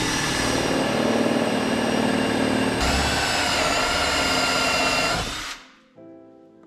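Power drill with a step bit running at speed, boring a hole in the kayak's plastic hull: a steady whine that shifts in pitch about three seconds in and stops near the end.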